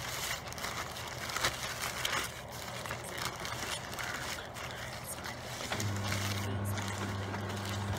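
Paper sandwich wrapper crinkling and crackling as it is unwrapped by hand. Near the end a steady low hum starts and keeps going.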